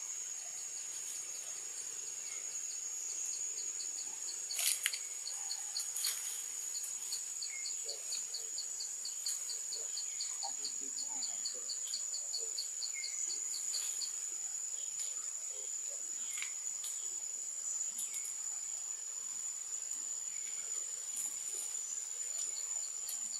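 Forest insect chorus: one insect keeps up a steady high-pitched drone while another pulses about three times a second, falling silent a little past halfway. A couple of sharp clicks stand out about five and six seconds in.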